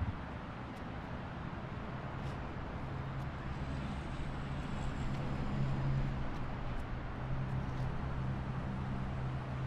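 Low, steady engine drone of the ro-ro cargo ship Seatruck Precision passing, over steady outdoor background noise. The hum grows stronger about four seconds in and holds.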